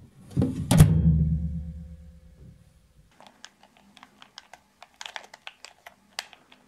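A microwave door shuts with a sharp clack about a second in, and the oven hums until it cuts off near the middle. Then a game controller's buttons click in quick, uneven taps.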